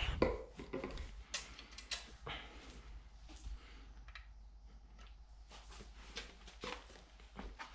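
Scattered light clicks and knocks of plastic containers and a bucket being handled while a litre of epoxy primer is poured off and measured, the loudest knock right at the start.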